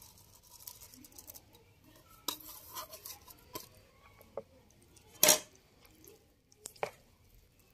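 Tableware and a metal spoon clinking and scraping as chopped chillies are tipped off a plate into a mixing bowl and stirred into shredded chicken and grated vegetables: scattered light clicks, with one sharp knock a little past halfway.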